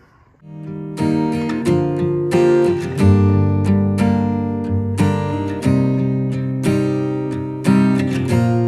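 Background music: acoustic guitar strumming chords, starting about half a second in.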